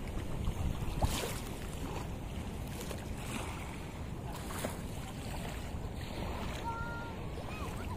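Wind buffeting the phone's microphone, a steady low rumble, with a few brief knocks about a second in.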